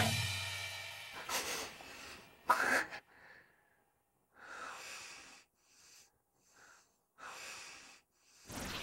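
A music sting dies away in the first second, then a person breathes heavily: about five slow, noisy breaths spaced one to three seconds apart.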